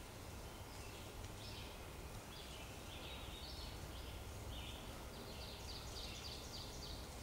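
Songbirds calling in spring woods: short high chirps throughout, turning into a quick even run of notes, about five a second, in the second half, over a faint low rumble.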